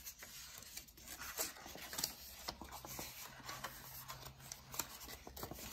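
Sheet of white paper rustling and crackling as hands pick it up and fold it, in irregular short rubs and crinkles.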